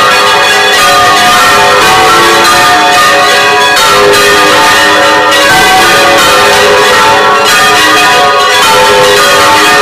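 Church tower bells ringing at very close range inside the belfry: repeated strokes overlap into a continuous, very loud peal of long ringing tones.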